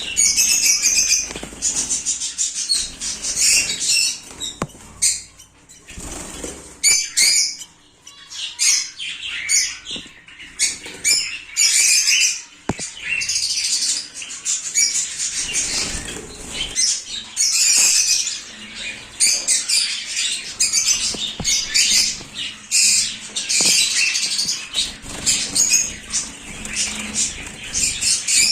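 A crowd of caged pet birds calling and chattering in rapid, overlapping high-pitched bursts, with a short lull about seven seconds in.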